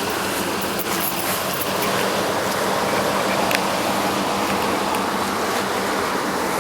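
2005 Nissan Armada driving over a dirt off-road trail: a steady drone of engine and tyre noise with a constant low hum and a few small clicks and knocks.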